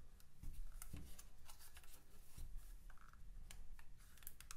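Hands wrapping elastic bands around hardboard supports on a small mould: faint rustling and small clicks, with a few soft knocks.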